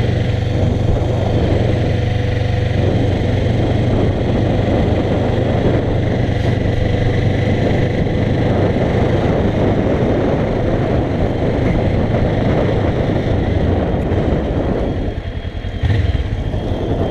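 Kawasaki ER-6n's parallel-twin engine running steadily while the bike is ridden, with wind noise over the microphone. Near the end the engine sound dips, then there is a short louder burst.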